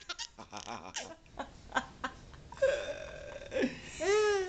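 Baby laughing softly and catching its breath between fits of laughter: short breathy gasps for the first couple of seconds, then two high squealing laughs, the last one rising and falling near the end.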